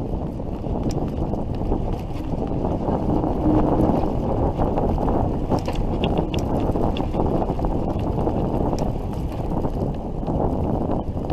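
Wind rumbling on the microphone of a handlebar-mounted camera on a moving bicycle, a steady low buffeting noise mixed with tyre noise from the path.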